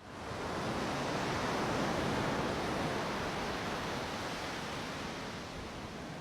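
Ocean waves breaking and washing on a shore, a steady rushing hiss that swells about two seconds in and slowly eases.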